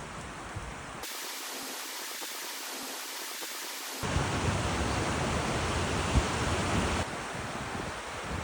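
Rushing water of a waterfall, a steady hiss. It changes abruptly in loudness and depth about one, four and seven seconds in, loudest and deepest in the middle stretch.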